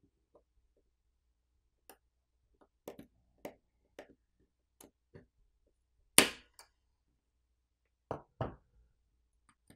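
Scattered small clicks and taps of repair tools and smartphone parts being handled during disassembly, with a sharper knock about six seconds in and two quick taps near the end.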